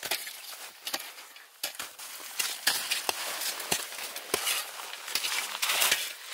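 Packed snow crunching and scraping as gloved hands dig out and press chunks of it, in a string of irregular crunches.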